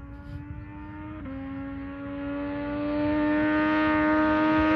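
A Yamaha MT-09 SP's three-cylinder engine through a Spark exhaust with no dB killer, approaching under acceleration. It shifts up a gear about a second in, then pulls on with its pitch slowly rising and grows steadily louder as it closes in.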